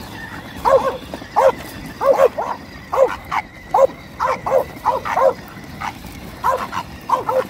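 Bulldog barking in a quick run of short, high yapping barks, about two a second, with a brief pause about two thirds of the way through.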